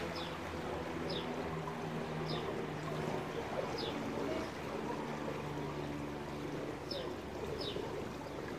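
Poolside outdoor ambience: a small bird gives short, falling chirps about once a second, with a gap in the middle. Underneath are a steady low hum and faint water sounds from the pool.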